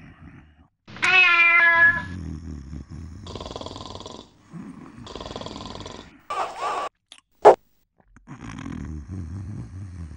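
A cat giving one long, loud meow about a second in, over a sleeping man's snoring. A short sharp knock comes a little past the middle.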